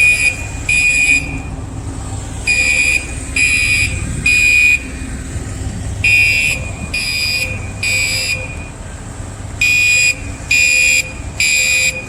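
Building fire alarm sounding the temporal-three evacuation pattern: three loud, high-pitched beeps in a row, a pause, then three more, repeating, over a low steady rumble.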